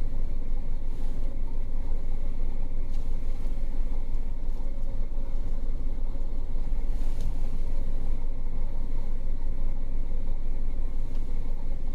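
Car engine idling steadily in neutral with the vehicle stopped, heard from inside the cabin as a constant low hum.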